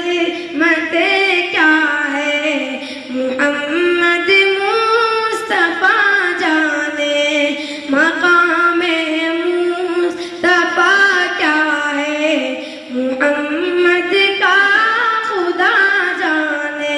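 A boy reciting an Urdu naat unaccompanied in a high voice, holding long notes and sliding between them, in melodic phrases with short pauses for breath.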